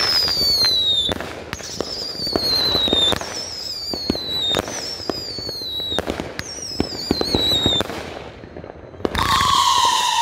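Magnus Midnight Howling 500-gram fireworks cake firing: five high whistling shots one after another, each a falling whistle of about a second and a half, with sharp pops and crackling from the star breaks. After a short lull near the end, a deeper falling howl rises with the next shot, the cake's wolf-howler effect.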